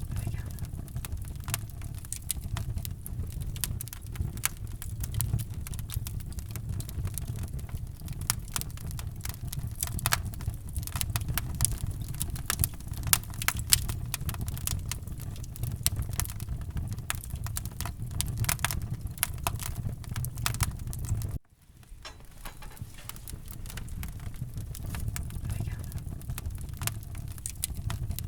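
Wood fire crackling in a fireplace, with frequent sharp pops and snaps over a low steady rumble. The sound cuts out briefly about 21 seconds in and swells back up.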